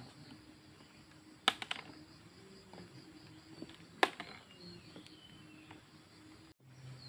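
Sharp clicks over faint steady background noise: a quick double click about a second and a half in, and a single click about four seconds in.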